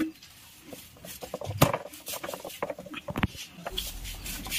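A large kitchen knife chopping through eel and into a wooden chopping block: a few sharp knocks, the loudest about one and a half seconds in and another about three seconds in, with lighter taps between.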